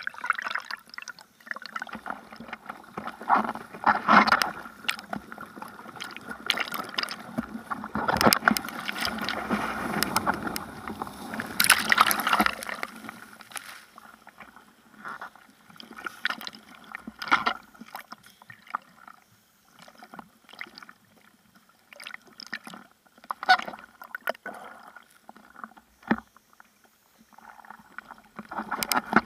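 Seawater splashing and sloshing against a bodyboard's nose-mounted camera, in irregular bursts as the rider paddles. A longer rush of whitewater runs from about eight to twelve seconds in as he rides a breaking wave.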